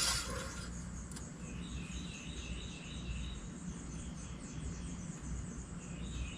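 Quiet background ambience with a low steady hum, and a bird chirping faintly in short repeated high notes from about a second and a half in.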